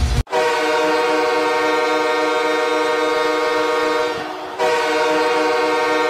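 Milwaukee Admirals ice-hockey goal horn from the 2011–16 seasons, a deep air horn of several notes at once, sounding in a long blast of about four seconds, a brief drop, then a second blast.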